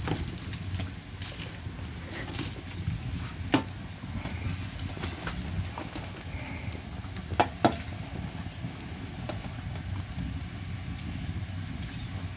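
Khajoor dough pieces deep-frying in a wide pan of hot oil over a fire: a steady bubbling sizzle with a low rumble beneath. Sharp clicks stand out, one about three and a half seconds in and two close together about halfway through.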